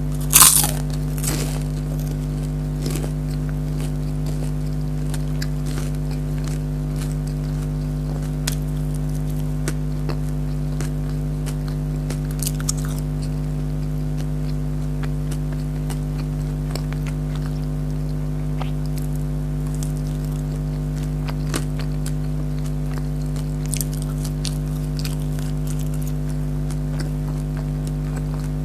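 A loud crunchy bite into fried food about half a second in, followed by scattered quieter crunches and crackles of chewing, over a steady low hum.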